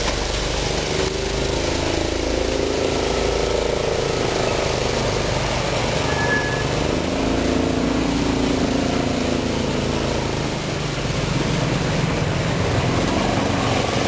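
Wulai's small two-seat tourist trolley train running along its track: a steady, loud rumble and rattle of the wheels and car.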